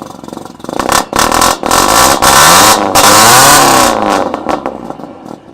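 Ford Focus engine revved hard several times, its pitch climbing and falling, loud from about a second in until it eases off near the end. It doesn't sound very good.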